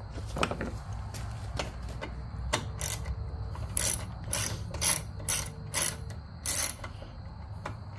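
Hand ratchet wrench clicking through short, irregular strokes while driving bolts home, with a few louder snaps in the middle stretch.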